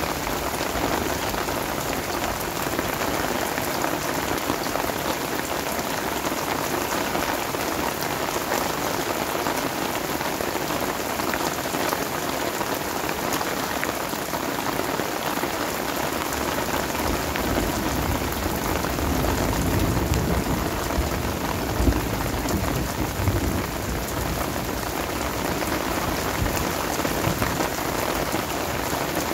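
Heavy rain shower falling steadily, drops hitting the ground and surfaces all around. A low rumble swells for a few seconds about two-thirds of the way in.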